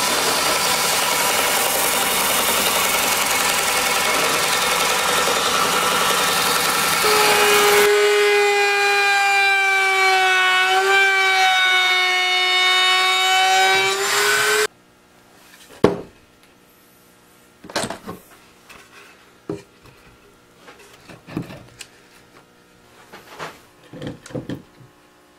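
A benchtop sander runs as a board is sanded against it. About a third of the way in, a router table's steady high whine takes over as a wooden edge is routed. The whine cuts off suddenly a little past halfway, and a few light wooden knocks follow as the pieces are handled and set on the workbench.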